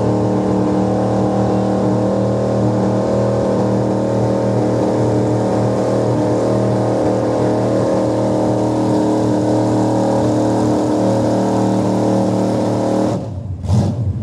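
Square-body Chevrolet pickup's engine running hard under load as it pulls a weight-transfer sled, a loud steady drone held at a constant pitch. It drops away sharply about a second before the end.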